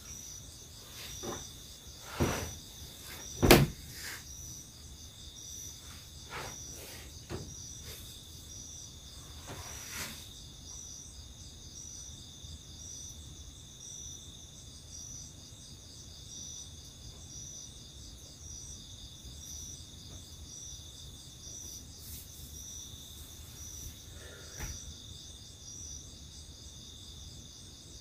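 Night insects chirping steadily and high-pitched, with a regular pulse about once a second. In the first ten seconds a few knocks and bumps come from someone settling down on a wooden plank floor, the loudest about three and a half seconds in.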